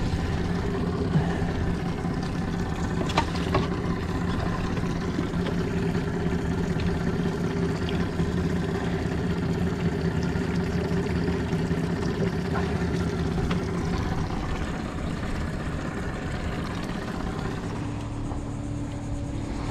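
Boat motor running at low speed, a steady hum that eases off and shifts pitch near the end.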